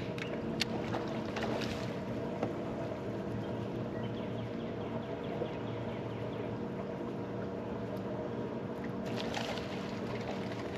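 Steady hum of a bass boat's bow-mounted electric trolling motor, with a few light clicks.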